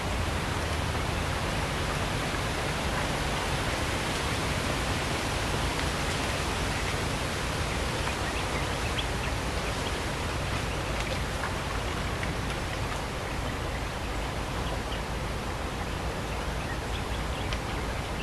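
Steady, even hiss of forest ambience, with a few faint short bird calls scattered through it.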